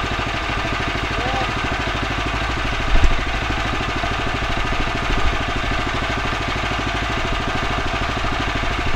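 Woodland Mills HM126 band sawmill's engine idling steadily with an even, rapid beat, the head standing still and not cutting. A brief knock about three seconds in and a smaller one about five seconds in.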